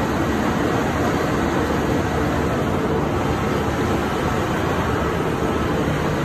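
Steady, loud, unbroken din of running machinery in a ship's engine room.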